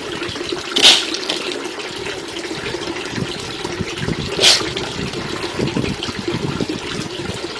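Handfuls of unhusked rice seeds dropped into a plastic tub of water: two short splashing rattles, about a second in and again about four and a half seconds in. Under them runs a steady background of flowing water.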